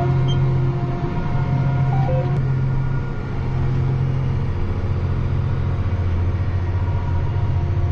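John Deere 8270R tractor's six-cylinder diesel engine running steadily under load while pulling a seed drill, a constant low drone.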